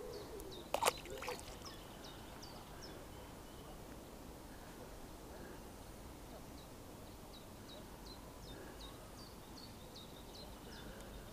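A small bird calling with a series of short, high, downward-sliding notes, a few a second, in two spells, over a low steady rumble. A sharp knock about a second in is the loudest sound.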